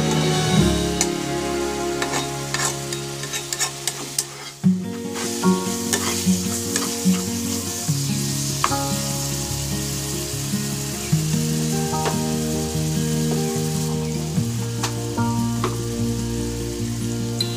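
Chepa shutki bhuna sizzling and popping in oily masala in a pan as it is stirred. Background music with held notes that change every second or so plays throughout.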